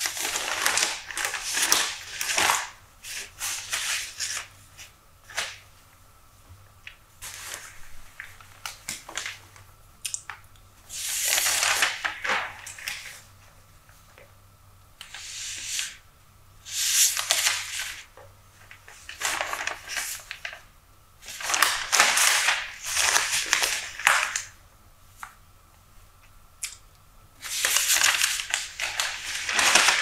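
Newspaper pages being turned and handled: crisp paper rustling in bursts every few seconds, with softer crinkles between them.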